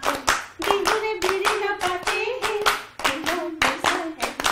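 A group of people clapping steadily in time, about four claps a second, along with a single voice singing a song without instruments.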